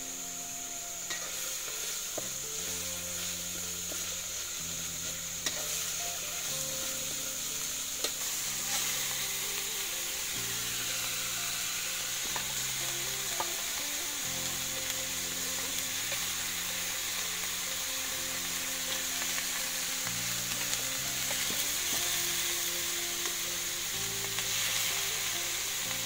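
Spice paste and oil sizzling steadily in a wok over a wood fire, stirred with a metal spatula, with a couple of sharp clicks of the spatula against the pan. Partway through, raw pigeon meat goes into the hot oil.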